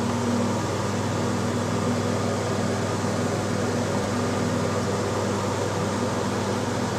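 Ceiling fan running steadily: a constant electric motor hum with the rush of air from the spinning blades.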